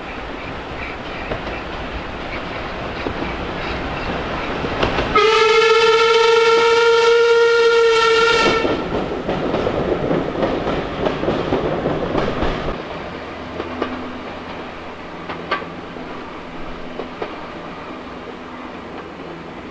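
Steam locomotive approaching and passing close by with its train. A little over five seconds in it blows its whistle, one steady note held for about three and a half seconds. Then the carriages roll past with wheel clatter, and near the middle the sound drops to a quieter rumble with occasional clicks.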